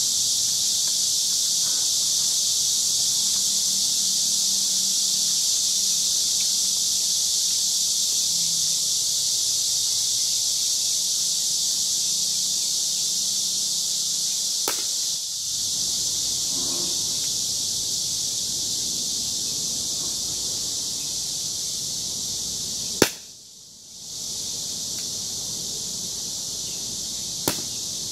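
Three sharp revolver shots spread over several seconds, the second the loudest, over a steady high-pitched insect chorus.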